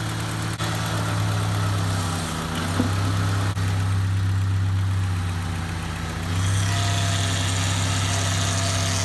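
Car engine idling with a steady low drone. Its level shifts slightly a couple of times.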